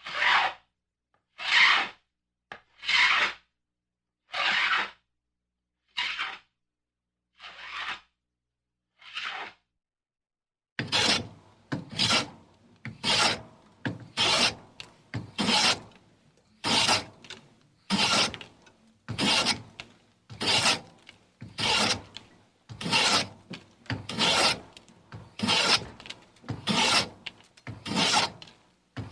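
Hand plane shaving wood in repeated strokes. At first the strokes come about every second and a half with silence between them. After a short pause about ten seconds in, they follow closer together, roughly one a second.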